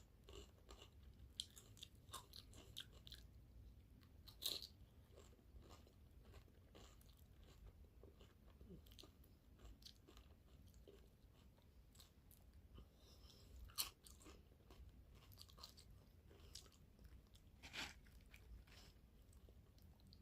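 Faint chewing and crunching of food close to the microphone: scattered small mouth clicks, with a louder crunch at about four seconds in, another near the middle and one more towards the end.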